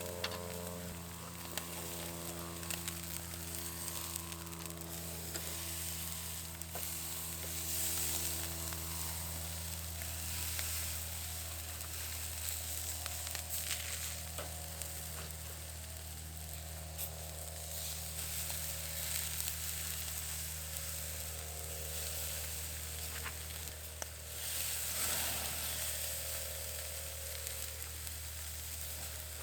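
Food sizzling and frying in a hot pan over a steady low hum. The sizzle swells louder about eight seconds in and again near twenty-five seconds.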